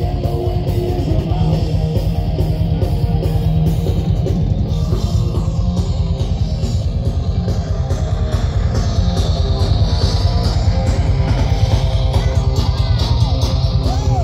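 Live rock band playing a fast, loud punk song on distorted electric guitar, bass and drum kit, with a rapid, driving beat.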